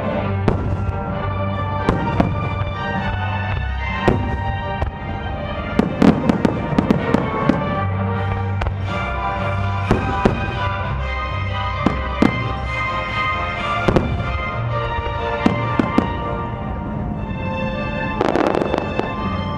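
Aerial fireworks shells bursting over music: sharp bangs scattered throughout, with a rapid run of them about six to seven seconds in.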